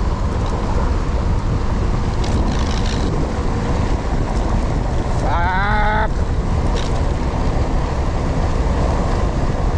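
Wind buffeting an action camera's microphone on a moving bicycle: a loud, steady rumble and rush. A short wavering tone is heard about five seconds in.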